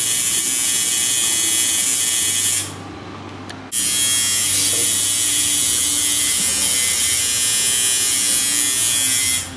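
Electric tattoo machine buzzing steadily as it works on skin. It stops for about a second a third of the way in, then starts again.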